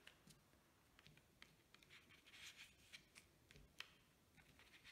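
Near silence, with faint soft rubbing and small ticks from fingers handling paper and a thin plastic sheet.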